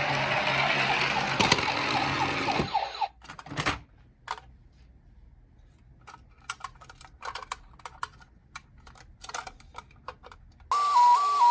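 Toy emergency-vehicle minicar sounds: a loud hissing rush with a faint siren under it for about the first three seconds, then scattered small clicks and taps, then an electronic two-tone hi-lo ambulance siren starting near the end.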